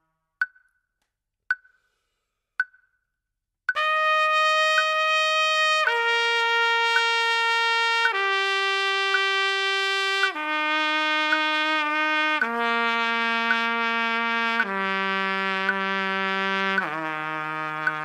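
Three evenly spaced clicks, then a trumpet plays seven long held notes of about two seconds each, stepping down in pitch one after another, with faint clicks keeping time underneath: a long-tone warm-up exercise.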